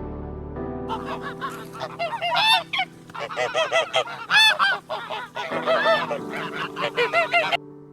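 Birds calling loudly in quick, overlapping calls, starting about a second in and cutting off abruptly near the end.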